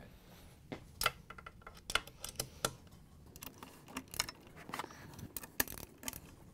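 Hand ratchet with a large Phillips driver bit clicking in short irregular runs, with light metal clinks, as the mixer's base screws are checked for tightness.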